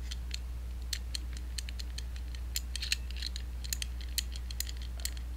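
Hand-cranked music box mechanism clicking as its crank is turned: irregular sharp ticks, a few a second, rather than a tune. The owner suspects he is turning the crank backwards.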